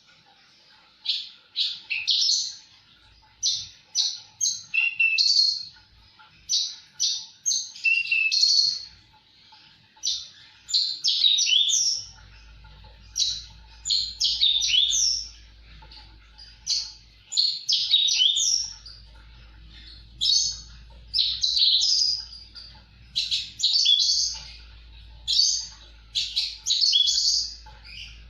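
Javan bush lark singing vigorously: quick, high chirping phrases, each about a second long, come one after another with short gaps. A faint low hum runs underneath in the second half.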